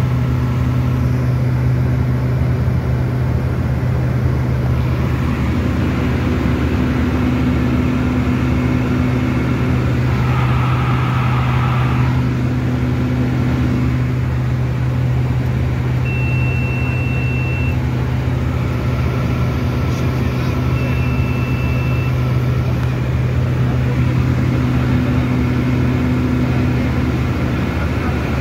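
Steady drone of a Beechcraft King Air F90's twin turboprop engines and propellers, heard from inside the cabin in flight.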